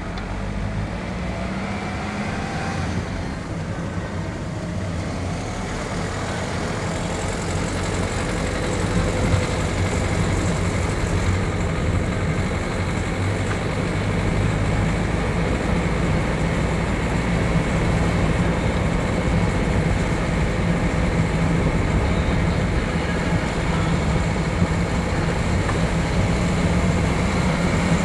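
Van driving along a road, heard from inside the cab: steady engine and tyre noise that grows louder over the first ten seconds or so, then holds steady.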